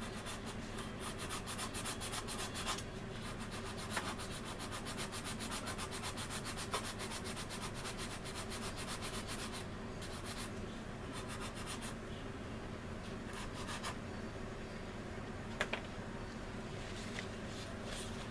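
Hand sanding a resin scale-model engine nacelle with a small sanding stick: quick back-and-forth scraping strokes in spells, with short pauses. A few light clicks of the part or tool are heard, the loudest near the end.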